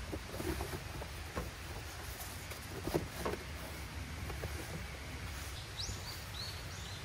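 Folding egg-crate foam sleeping pads being unfolded and laid out on a van's cargo floor: soft rustling with a few light knocks, the loudest about three seconds in. Near the end a bird gives several short rising chirps, over a steady low rumble.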